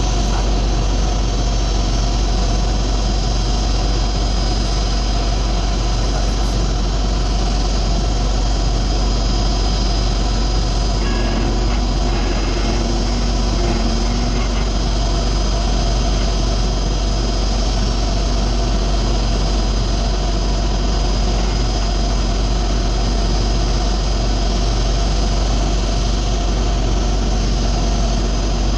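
Engine of an aircraft pushback tug idling: a loud, unchanging drone with a deep hum underneath and several steady high whining tones.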